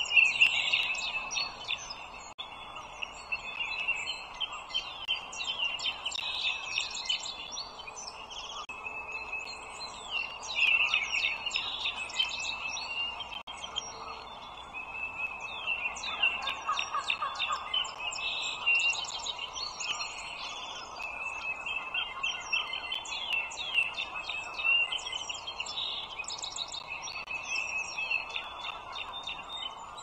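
Birds chirping in a continual chorus of quick, high-pitched calls, over a low steady hiss.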